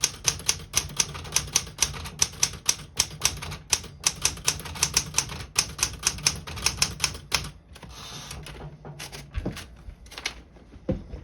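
Smith-Corona Galaxie 10 Deluxe manual portable typewriter being typed on: quick, steady key strikes clacking against the platen, several per second. About seven and a half seconds in the typing stops for a short rasping sound, followed by a few slower strikes and two dull thuds near the end.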